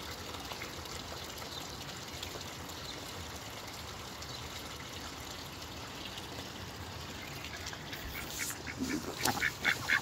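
Steady trickling water in a garden pond. Near the end, a Rouen duck starts a quick run of short, repeated quacks.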